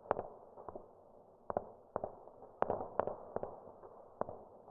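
Muffled, distant-sounding gunfire laid in as battle ambience: about ten irregular sharp pops, some in quick pairs, over a dull low hiss.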